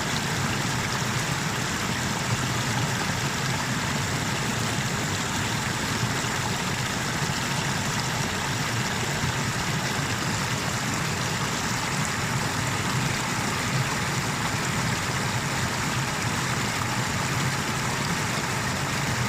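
Water rushing over a small river waterfall, a steady even noise with no breaks or changes.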